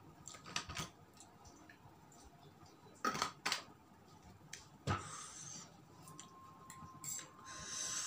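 A few sharp clicks and clinks of cutlery against a plate during eating, spread out with pauses, plus a brief hiss near the end.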